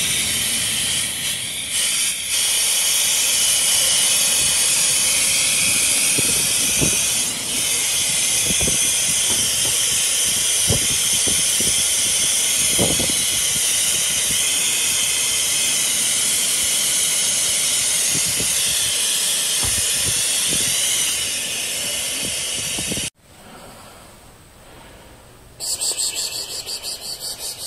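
Steady hiss of air blowing from the hose of a police officer's breathing-apparatus mask, held to a suffocating cat to give it air, with a few soft knocks from handling. The hiss cuts off suddenly about 23 seconds in, and a fast rhythmic rasping follows near the end.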